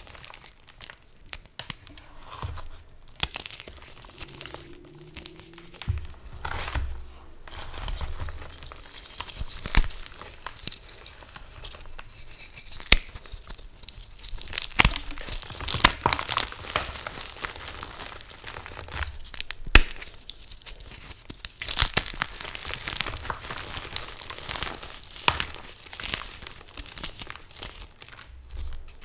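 Dyed Chalklate gym chalk blocks crushed and crumbled by hand: crunching and crackling, with several sharp snaps as blocks break apart.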